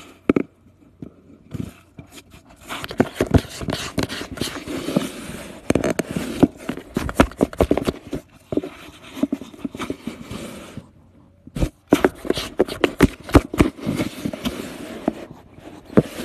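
Scratching and scraping on cardboard as a cat moves about inside a cardboard box: dense, irregular scratchy clicks in two long stretches, with a brief pause about eleven seconds in.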